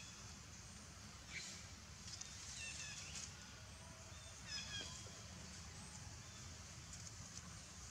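Several short, high animal calls, each a quick run of notes stepping downward, heard a few times over a steady low outdoor rumble, with a soft knock about a second and a half in.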